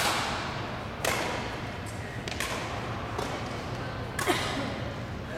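Badminton racket strokes on a shuttlecock during a rally: sharp smacks about a second apart, each trailing off in the hall's echo. The loudest smack comes a little after four seconds in.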